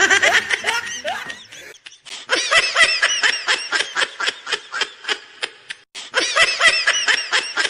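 High-pitched laughter, one quick "ha" after another, with a short break about two seconds in and a brief dip near the six-second mark.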